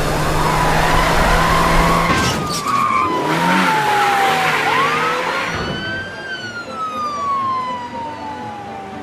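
Police car siren in a slow wail, falling and rising in pitch, over a car engine and road noise. The engine and road noise drop away about six seconds in, leaving the siren.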